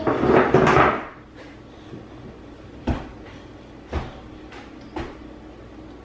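A brief loud rustle, then three sharp clicks or knocks about a second apart.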